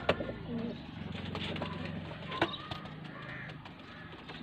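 Domestic pigeon cooing with a low, steady coo, with a couple of faint clicks.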